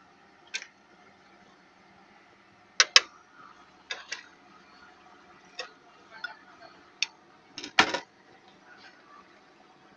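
A long-handled utensil knocking and tapping against a metal cooking pot, about a dozen sharp, irregular clicks and clanks, the loudest near three seconds in and near the end.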